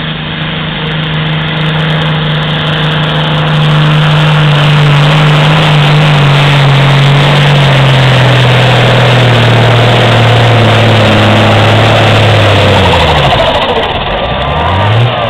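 John Deere 4055 tractor's diesel engine running hard under load as it pulls a sled, its pitch sagging steadily as the engine lugs down. About thirteen seconds in the engine note falls away sharply, then rises briefly near the end.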